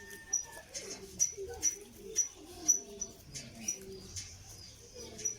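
Pigeons cooing over and over in low, wavering calls, with small birds chirping high and sharp about twice a second.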